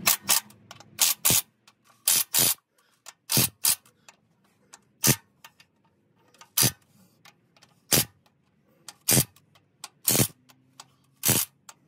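Sharp metallic clicks of a wrench on the bell-housing bolts as they are tightened, about fourteen in all. They come singly and in close pairs at uneven intervals.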